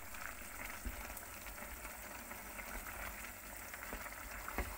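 Minced meat in tomato sauce simmering in a frying pan, a steady bubbling sizzle, while a wooden spatula stirs it with a few light knocks.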